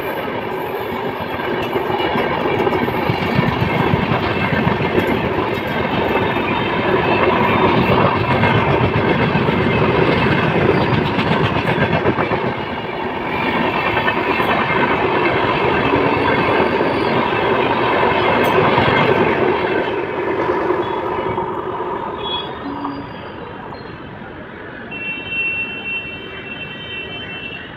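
Express train of passenger coaches running past at about 90 km/h: a steady rush of wheel and rail noise with clickety-clack from the wheels over the rail joints. It fades away over the last several seconds as the train recedes.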